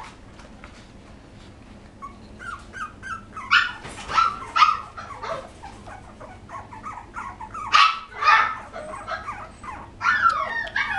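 Young poodle puppies whining and squealing in many short, high, sliding cries. It starts about two seconds in after a quiet opening, and comes and goes in loud spells.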